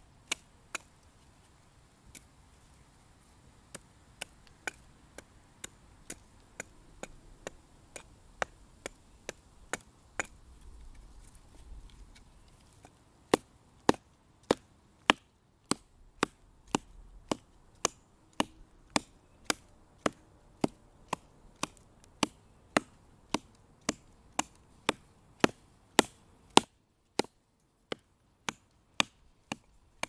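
Marttiini Wilderness Axe, a small hatchet with a carbon-steel head and ash handle, chopping a dead branch in short strokes: a run of sharp knocks. They are lighter and about one a second for the first dozen seconds, then harder at about two a second, with a brief pause near the end.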